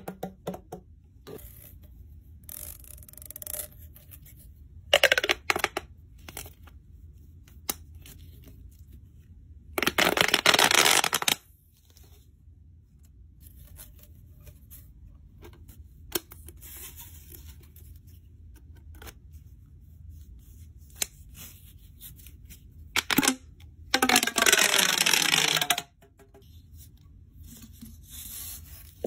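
Corrugated plastic pop tubes being stretched, bent and squeezed: several bursts of rapid crackly popping as the ribs snap open and shut, the longest lasting about a second and a half, one near the end falling in pitch. Between the bursts, quieter light clicks and plastic handling.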